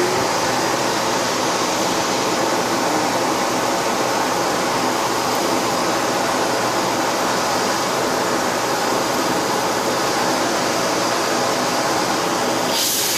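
Vacuum cleaner running steadily, an even rushing noise with a faint steady motor whine, and a brief louder rush of air right at the end.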